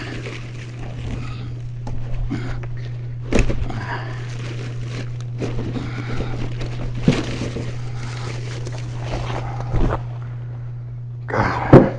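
Firewood being handled and stacked: a few sharp knocks of logs against one another, spread out, amid rustling and shuffling, over a steady low hum.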